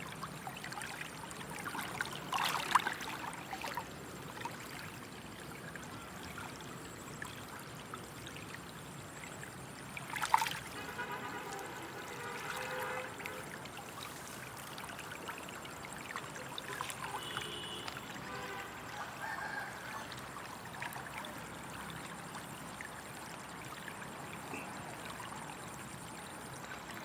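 Water running and trickling steadily, with a few splashes about two to three seconds in and a single sharp knock about ten seconds in.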